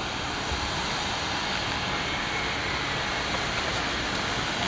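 Airbus A321neo's turbofan engines running at low taxi power as the airliner rolls slowly along the runway, a steady jet noise.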